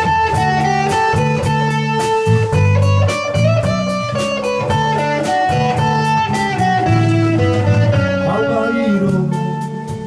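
Live rock band playing a song's instrumental intro: a sustained guitar melody over electric bass, a Ludwig drum kit keeping a steady beat, and acoustic guitar.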